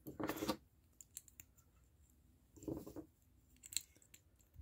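Small plastic toy pieces handled and fitted together: faint scattered clicks with brief rubbing rustles.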